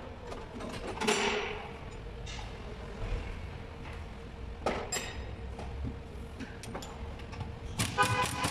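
Metal clinks and knocks of tools and parts as a front suspension strut is taken apart in a spring compressor: a sharp knock about a second in, two more near the middle, and a quick run of strikes near the end, over a steady low hum.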